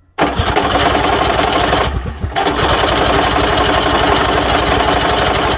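Trabant 601's two-cylinder two-stroke engine being cranked over fast by its starter without catching, with a brief easing about two seconds in. This happens despite petrol and oil put straight into the cylinders: a bad sign, and the owner suspects the engine is not drawing in fuel.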